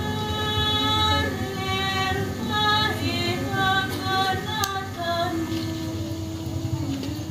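Female voice singing a melody in long held notes. The higher singing stops a little after five seconds in, leaving one lower held note that ends near the close.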